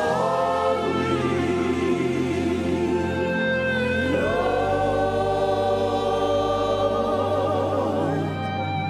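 Gospel worship music: voices singing long, wavering held notes that slide between pitches over a steady low keyboard pad.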